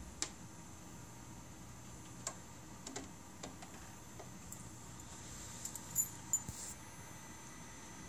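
A powered-on TeleVideo 910 CRT terminal humming faintly with thin steady high tones. Small sharp clicks and taps come every second or so, with a louder cluster of clicks and short high chirps about six seconds in.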